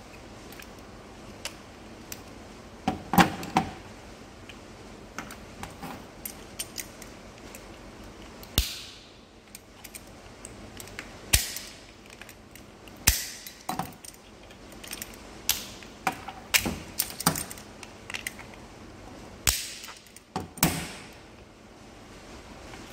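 Black plastic housing of an old steering-column clock spring being pried and snapped apart with pliers: irregular sharp cracks, snaps and clicks, some loud, spread unevenly throughout.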